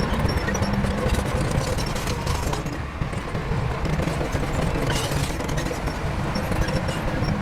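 Heavy diesel construction machinery running steadily: a low engine rumble with scattered clattering and clicks.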